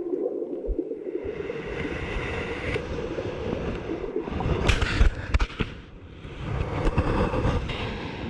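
Surf water churning, heard muffled through a GoPro's waterproof housing as it sinks and tumbles in the waves, with a few sharp knocks about five seconds in, typical of the housing striking sand or the board.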